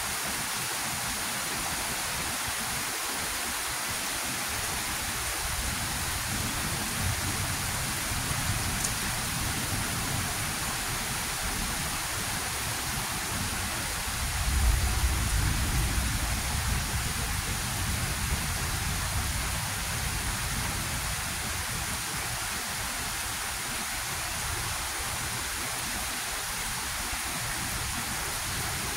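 Steady rain falling throughout, with a low rumble of thunder about seven seconds in and a louder, longer rumble of thunder about halfway through.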